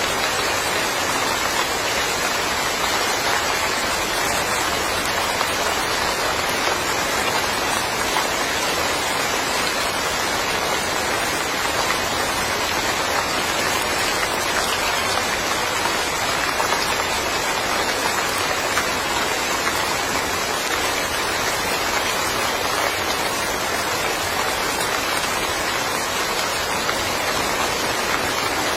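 Steady rainfall, an even hiss of drops hitting the ground and surfaces.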